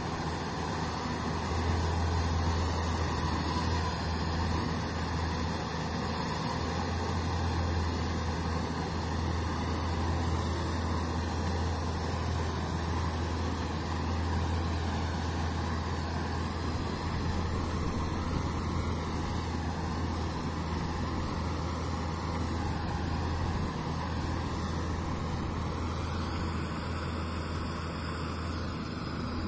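Sonalika tractor with a mounted combine harvester working through standing crop: the tractor engine and harvesting machinery run as one steady drone with a strong low hum.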